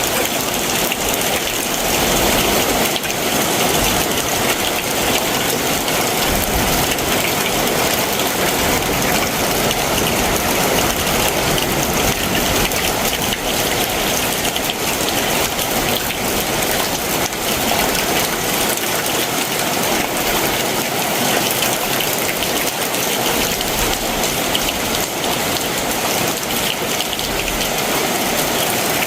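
Heavy summer monsoon downpour, a steady dense hiss of rain falling without letup.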